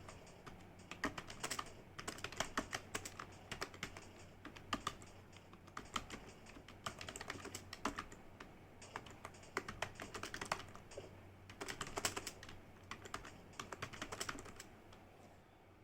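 Typing on a computer keyboard: rapid key clicks in bursts with short pauses, stopping just before the end.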